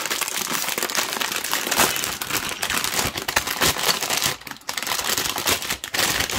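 A plastic bag of model-kit parts crinkling and rustling as it is handled, with a brief lull about four and a half seconds in.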